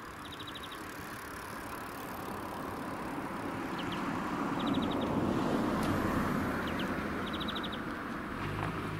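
A road vehicle passing by, growing louder to a peak about five seconds in and then fading. Over it a bird repeats short, rapid chirping trills.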